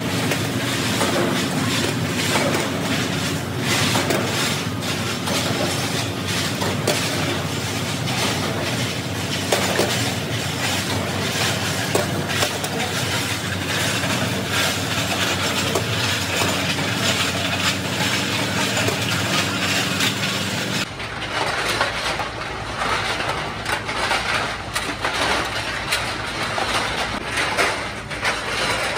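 Steel cultivator blades rattling along a chain-driven conveyor trough, a continuous metallic clatter over a steady machine hum. About two-thirds of the way through the sound changes to the clatter of a motor-driven rotating steel drum.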